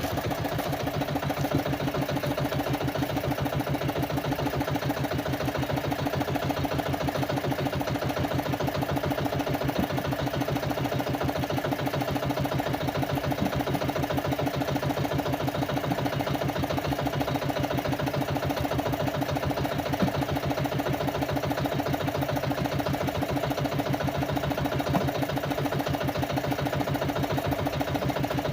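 Small boat engine running steadily, with a fast, even beat.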